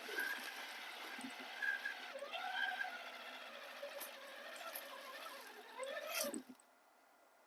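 RC crawler's electric motor and gears whining, the pitch rising and falling with the throttle, over a steady hiss. A knock comes just after six seconds in, and then the whine stops.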